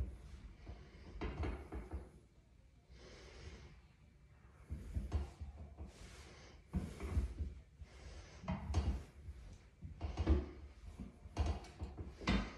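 Hard breathing during seated calf raises: a sharp breath about once a second, each with a low knock from the calf raise machine as its weight moves.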